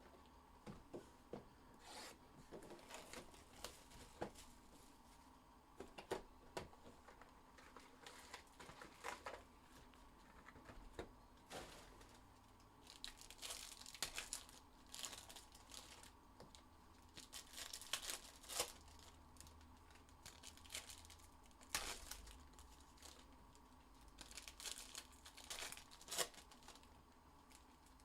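Plastic wrapping on trading-card packs being torn open and crinkled: faint, irregular rips and crackles, with busier bursts of crinkling now and then.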